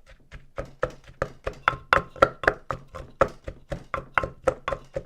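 Pestle pounding in a mortar, a steady run of knocks about four a second, each with a short ring, mashing and mixing the tomato and chili sauce.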